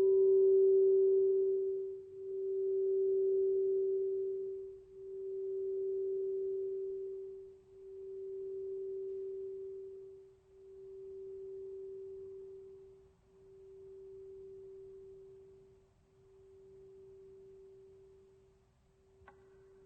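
A struck gong ringing out as one pure, steady tone that pulses slowly, swelling and fading about every three seconds, as it gradually dies away. A faint click comes near the end.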